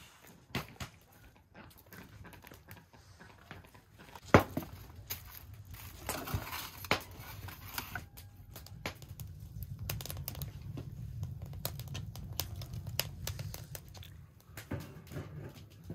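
Aluminium foil crinkling as a foil-wrapped package is handled and pushed into a clay oven, amid scattered knocks and clatter. There is one sharp knock about four seconds in, and a low steady rumble through the second half.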